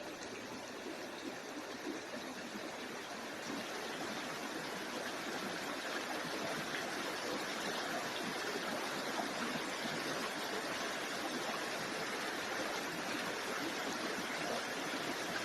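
Running water, a steady rushing flow like a creek, growing a little louder over the first few seconds.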